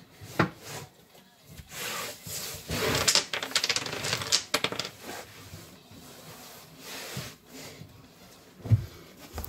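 Irregular clattering knocks and rubbing from handling and cleaning work, with a denser scraping, rubbing stretch from about two to five seconds in.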